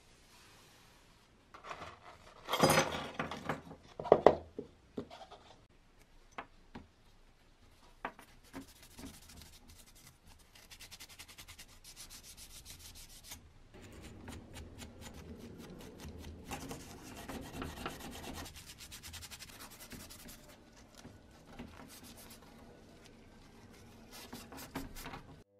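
Green abrasive scouring pad scrubbing a small metal part of a 1940s JEP toy speedboat in quick rubbing strokes. A few loud knocks and rattles come in the first few seconds as the part is handled.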